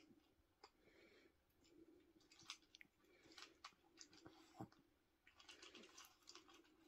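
Faint crunching and clicking of a Yorkshire terrier chewing dry kibble from a bowl, coming in little clusters of crisp clicks.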